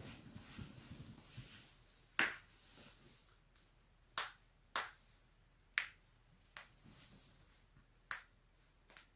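A person's joints cracking: about half a dozen sharp pops at uneven intervals, a few much louder than the rest. A low rustle of movement comes before them in the first second and a half.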